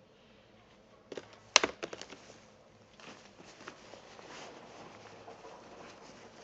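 Bags being handled and packed: a quick run of clacks and knocks about a second in, one much louder than the rest, then the rustle of bag fabric being rummaged through, with a few light clicks.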